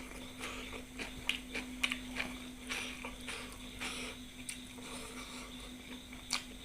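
A person chewing food, with irregular soft mouth clicks and short wet chewing sounds over a steady low hum.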